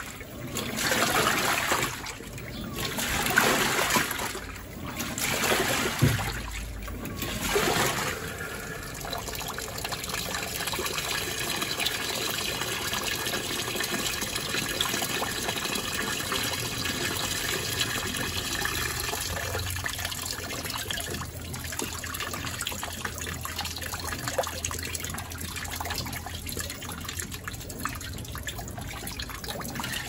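Panasonic NA-FD10X1HRM top-load washing machine in its wash cycle: water sloshing in surges as the pulsator churns the clothes, then, from about eight seconds in, a steady stream of water pouring into the tub from the top jet over an even machine hum.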